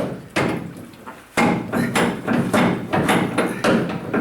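Hammer blows on a pickup truck's sheet-metal bedside while a big dent is being worked out. A couple of strikes, a short pause, then a steady run of about two strikes a second.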